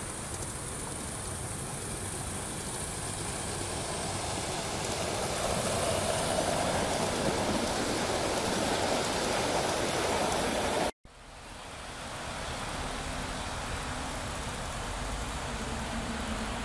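Gauge one live-steam model train running on garden track, the wheels and coaches making a steady rolling noise that grows louder as the train passes close. The sound cuts out for a moment about eleven seconds in, then resumes a little quieter.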